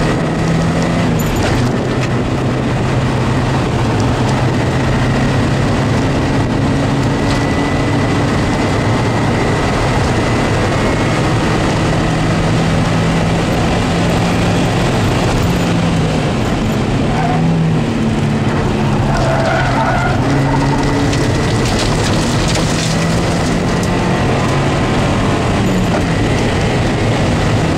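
Porsche 924S's 2.5-litre inline-four engine under hard driving, heard from inside the cabin, its note rising and dropping again and again as the car accelerates, brakes and shifts through an autocross course, over steady road and wind noise.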